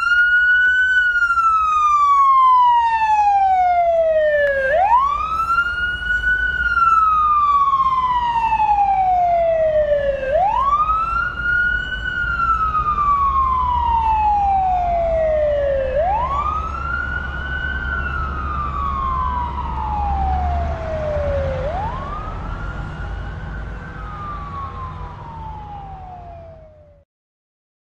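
A siren wailing, each cycle rising quickly in pitch and then falling slowly over about five seconds, five cycles in all. It grows fainter towards the end and cuts off suddenly, over a low rumble.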